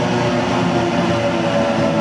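Sydney Trains double-deck electric train running past close along the platform: steady wheel-on-rail rumble with several steady electric motor tones humming over it.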